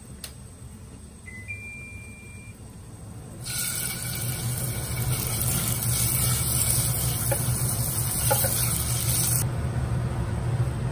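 Chunks of raw meat sizzling loudly in hot oil in a saucepan. The hiss starts about three and a half seconds in and cuts off suddenly about a second before the end. Earlier there is a single short high beep over a low steady hum.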